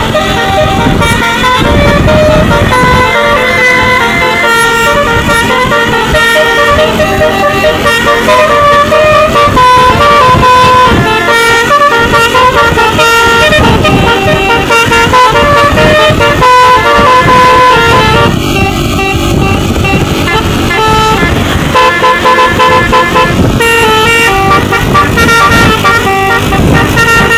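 Basuri telolet musical horn on a tour bus playing a melody: a loud run of horn notes stepping quickly from pitch to pitch, over a low rumble, with a brief break about two-thirds of the way through.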